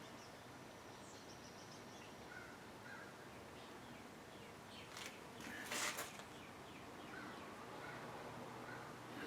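Quiet background with faint, short bird calls and a couple of brief small clicks and rustles about five to six seconds in.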